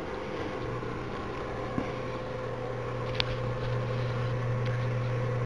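Infrared electric fireplace heater running with its fan blowing, a low hum coming in about half a second in, and a sharp click about three seconds in. It is running normally, without the E1 error, with its thermal cutoff switch reconnected.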